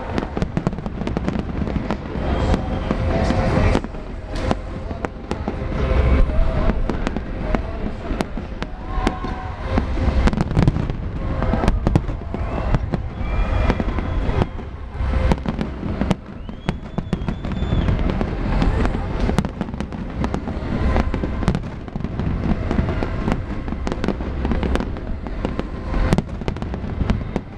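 Large fireworks display: a dense, continuous barrage of shells bursting, with rapid overlapping bangs and crackles over deep booms.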